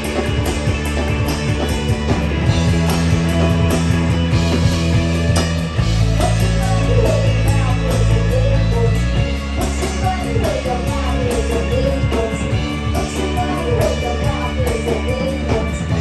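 Live rock band playing: distorted electric guitars, bass and a drum kit, with a woman's lead vocal coming in over the band in the second half.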